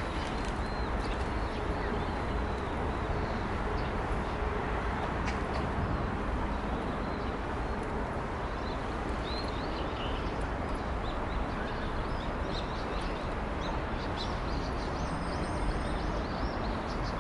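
Small birds chirping in short, quick calls over a steady outdoor background rush, the chirps thicker in the second half.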